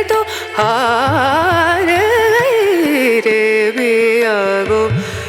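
Background music: a woman sings a long, ornamented, wavering sustained line from an Indian classical-style Hindi song, with drum and instrumental accompaniment.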